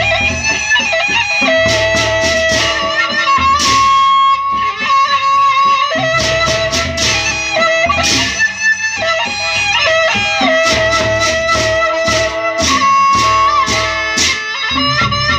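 Sasak gendang beleq ensemble playing: a suling bamboo flute carries a sliding melody over the pulse of the big barrel drums, with clusters of cymbal clashes.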